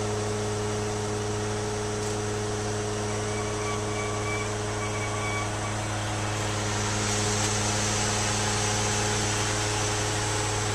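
Heavy machinery engine running steadily at a constant speed: an even low hum with faint higher machinery noise over it.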